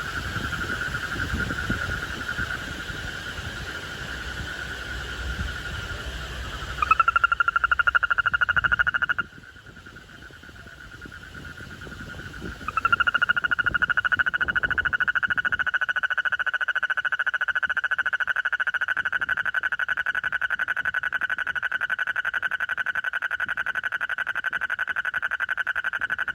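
A frog calling with a loud, steady, high-pitched trill. It swells about seven seconds in, breaks off about two seconds later, then starts again and keeps going without a break.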